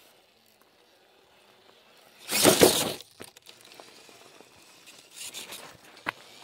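A loud burst of crunching and scraping on gravelly rock, lasting under a second, about two and a half seconds in. A softer crunching patch follows near the end, then a single sharp click.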